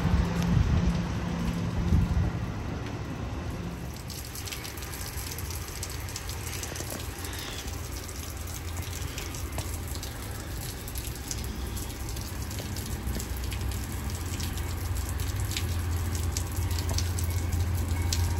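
A multilevel commuter train pulling out, its low rumble and hum dying away over the first few seconds. Then steady rain, with water dripping and ticking off the platform canopy. A low hum builds near the end as another train approaches.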